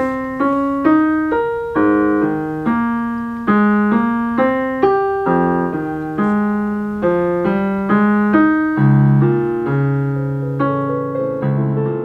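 Solo piano playing a slow melody over chords, with each struck note ringing and fading before the next. It starts abruptly.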